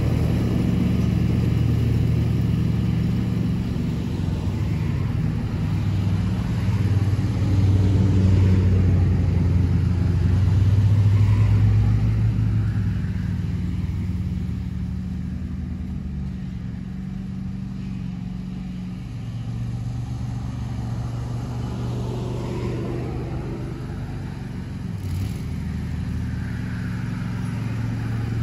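John Deere S120 riding mower's V-twin engine running steadily with the cutting deck engaged as it mows grass. It is loud at first, grows much fainter about halfway through as the mower moves off, then comes up a little again near the end.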